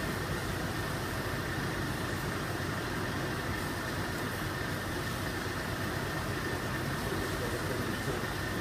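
A steady engine drone, even in level, with a faint high whine over it.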